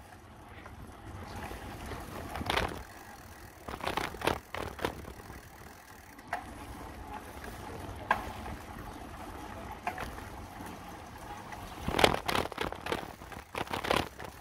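Bicycle riding over rough, patched asphalt: a steady low rumble of wind on the microphone, with scattered rattles and knocks as the bike goes over bumps. A cluster of louder knocks comes about twelve seconds in.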